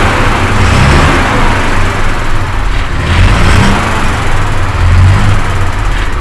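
HOWO truck's diesel engine running in the cab, at a fast idle that eases down toward normal idle, while the compressor builds air-brake pressure.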